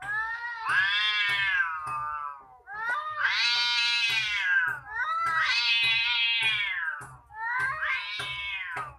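Cats yowling as in a fight: four long, drawn-out, wavering yowls in a row.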